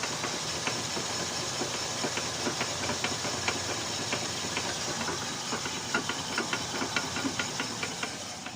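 Toyota Corolla Altis with its 3ZZ engine running under a steady hiss, with irregular clicks and knocks throughout that ease off slightly near the end: the noise is traced to a worn inner CV joint.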